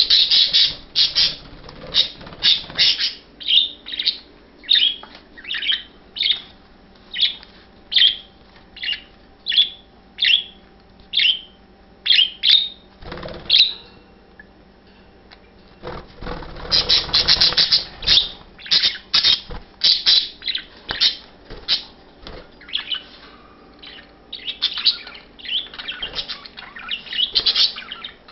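Budgerigars chirping: a run of short, high calls about two a second, with busier bursts of chatter at the start and again around the middle.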